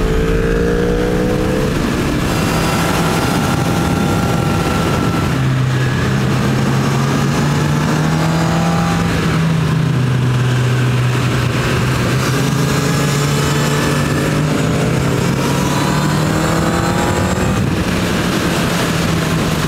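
Honda CB1000R's inline-four engine running under way at speed, with wind rushing past; its pitch climbs and drops back a few times as the revs change. The stock Euro 4 exhaust gives no burble or pop on overrun.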